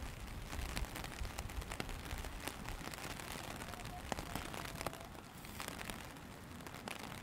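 Steady rain: an even hiss of rainfall with many scattered sharp taps of individual drops landing close by.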